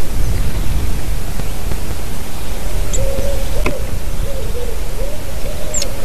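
Wind buffeting the nest camera's microphone, a steady rumbling hiss. Over it, from about halfway, a faint low wavering tone repeats in short arcs, with a few faint high bird chirps and a single short click.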